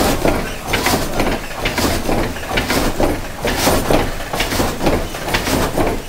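Water-wheel-driven vertical sash saw (oppgangssag) running: the wooden saw frame going up and down and sawing a log, a regular clatter and rasp of about one stroke a second.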